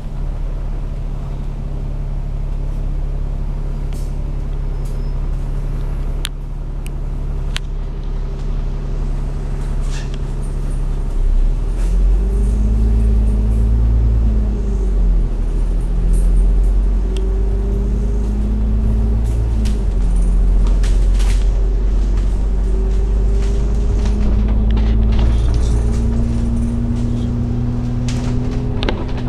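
Alexander Dennis Enviro500 MMC double-decker bus heard from inside: its diesel engine idles at a steady pitch while the bus waits, then about twelve seconds in it pulls away, the rumble growing heavier and the engine note climbing in steps as the gearbox shifts up. A few sharp clicks and rattles come from the cabin along the way.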